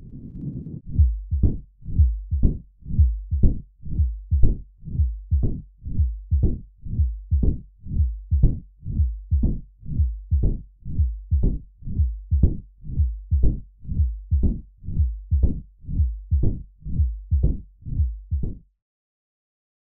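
Heart sounds of mitral stenosis as heard through a stethoscope: an even run of low thuds about two a second. They stop suddenly shortly before the end.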